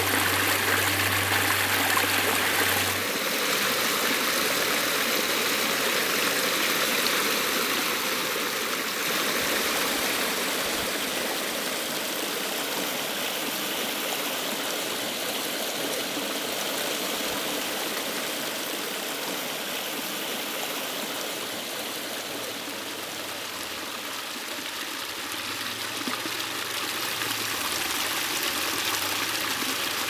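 Water of a backyard pondless waterfall and stream splashing and trickling over rocks in a steady, unbroken rush, its tone shifting slightly a few seconds in.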